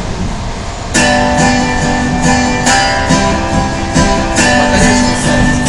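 Strummed acoustic guitar music with a steady rhythm starts about a second in, over a low rumbling background: a backing track for a song that is about to be sung into a microphone.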